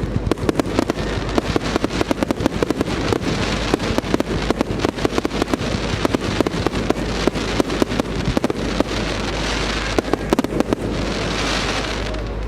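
Fireworks display: a rapid barrage of bangs and crackles, several a second, with a dense crackling hiss taking over near the end.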